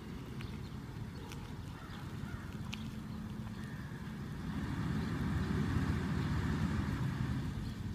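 Jeep Wrangler engine running as the vehicle drives over grass, growing louder from about halfway in as it accelerates and a rear wheel spins on the turf.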